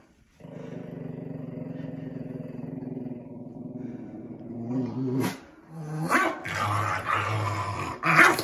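Small Shih Tzu–Pekingese cross growling long and low under a bath towel, protesting at being dried after his bath. In the second half the growling turns louder and rougher while the towel is rubbed over him, with a couple of short, sharp outbursts, one about five seconds in and one near the end.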